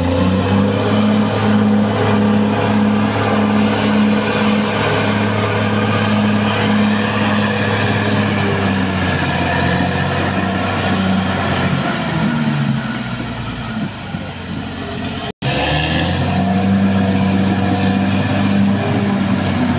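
Caterpillar D6R XL bulldozer's diesel engine running steadily under load. Its note dips for a couple of seconds about two-thirds through, then recovers after a momentary cutout.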